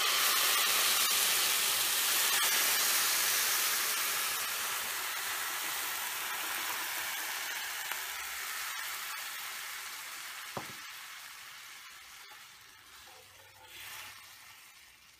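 Milk sizzling as it is poured into a hot pan of cooked grated beetroot, loudest at first and fading steadily as the pan cools under the liquid. A spatula stirs briefly near the end.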